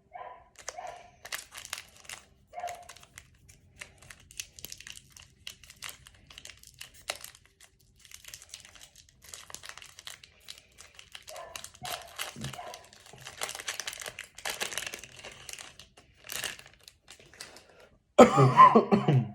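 A foil trading-card pack being torn open and crinkled, with scattered crackles and rustles. Near the end comes a much louder, short vocal sound.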